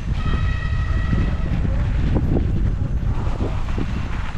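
Electric mountain bike riding on a trail: heavy wind rumble on the microphone with scattered knocks and rattles. A steady high whine runs through the first second and a half and then fades.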